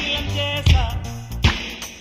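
Background music with a steady beat and bass.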